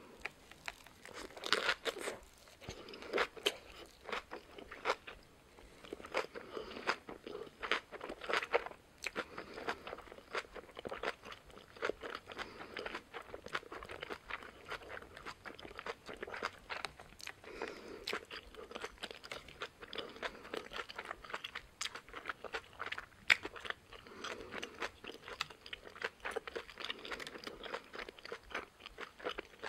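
Close-miked chewing of a Korean bossam wrap, boiled pork rolled in a cabbage leaf, with a steady stream of crisp crunches. The crunching is densest in the first several seconds.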